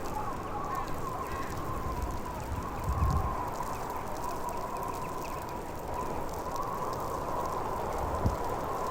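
Blizzard wind: a steady rush of noise with a wavering high whistle running through it. A low gust swells about three seconds in, and there is a short thump near the end.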